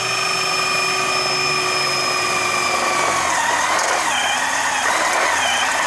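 Power tool running at full speed with a steady whine, its pitch wavering after about three seconds as it comes under load.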